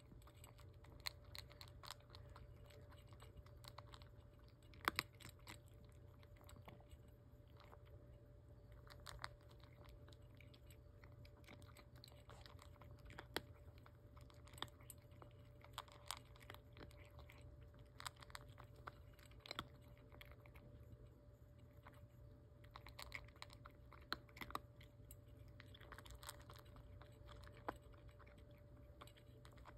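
A tabby cat crunching dry kibble from a stainless steel bowl, chewing in quiet, irregular bursts of sharp crunches.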